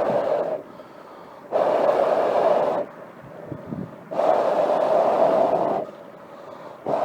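Long, steady breaths blown into the fire base of a small storm kettle to revive the weak wood fire, one blow about every two and a half seconds with pauses between for breath.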